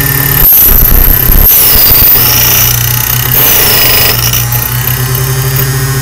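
Small key duplicating machine running, its electric motor driving the cutter wheel through a brass key blank as the carriage is slowly guided along the original key: a steady hum with a rasping chatter. A high whine dips and rises in pitch several times as the cut loads the motor, which bogs down a bit.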